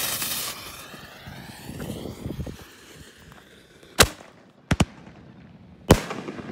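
Winda G-Force 1.4G canister shell fired from a mortar tube: its fuse hisses and sputters at first, then the lift charge goes off with a sharp bang about four seconds in. A quick pair of bangs follows, and another loud bang comes near the end as the shell breaks.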